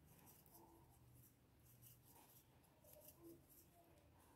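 Near silence, with faint scratchy rustles of a crochet hook working cotton yarn through stitches.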